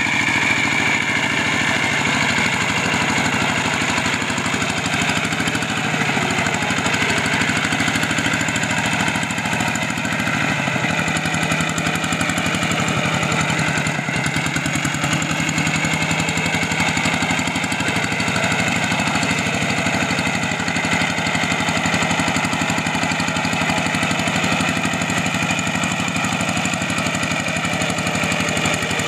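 Single-cylinder diesel engine of a Kubota G3000 two-wheel hand tractor running steadily while it pulls a plough through deep flooded paddy mud.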